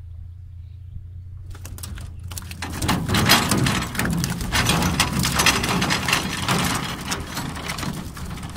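Freshly caught tilapia flopping and slapping against the bottom of a boat: a dense, irregular clatter of wet knocks and splashes that starts about a second and a half in and gets louder a second later.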